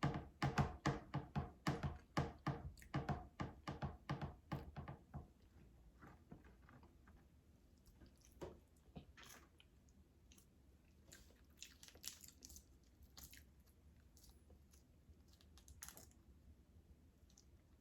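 Close-miked chewing of food with the mouth, a quick even run of wet chewing clicks, about four a second, for the first five seconds. Then only a few faint crunches and smacks.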